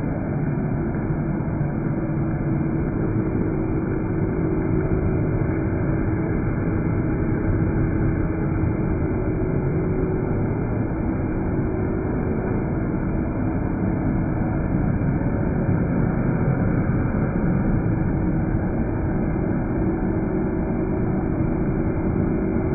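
Corded electric leaf blower running steadily, blowing leftover litter and dust out of a chicken coop: an even rush of air over a steady motor hum. The sound is slowed down with the slow-motion footage, so it is low and dull with no high end.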